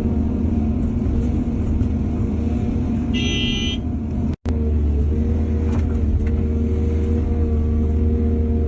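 Heavy diesel engine of an excavator running steadily while loading soil onto a truck. A short high-pitched tone sounds about three seconds in. The sound drops out for an instant a little past the middle.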